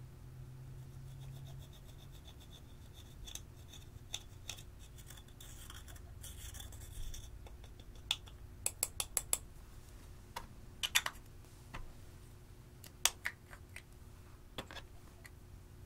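Small metal tool scraping and chipping pressed eyeshadow out of a plastic compact, with a soft scratchy scrape in the middle and several quick runs of sharp clicks.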